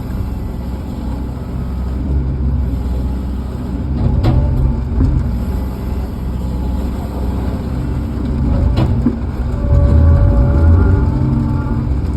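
Tractor engine running steadily with a deep rumble, with a couple of sharp knocks about four and nine seconds in. Near the end the engine grows louder and a steady whine joins it.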